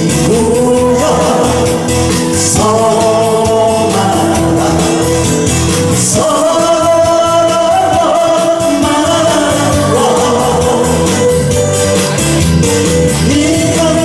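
A man singing a Korean song into a handheld microphone over an amplified recorded backing track, drawing out long held notes.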